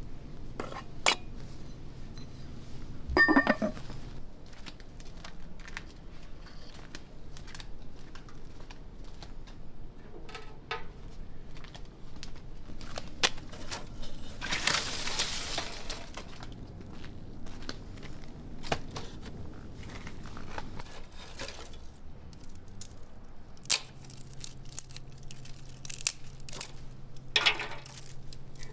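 Dry twigs rustling as a handful is pulled from a wooden crate, then cracking as they are snapped by hand over a metal fire basin. About three seconds in there is a single ringing clink of kitchenware.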